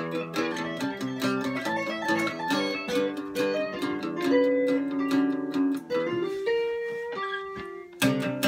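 Two guitars, an acoustic and an electric, playing an instrumental passage of picked notes together. About six seconds in it thins to a few held notes, then the strumming picks up again near the end.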